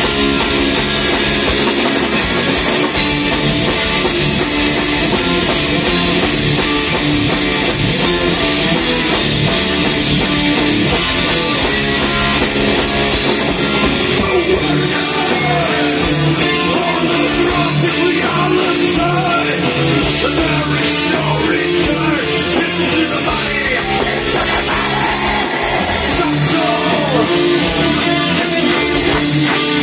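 Live metal band playing at full volume: drum kit with cymbals, electric guitar and keyboards, with a singing voice in the mix.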